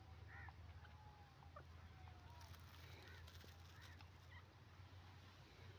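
Faint, soft calls of a grey francolin: a few short, high notes spaced seconds apart, over a low steady hum.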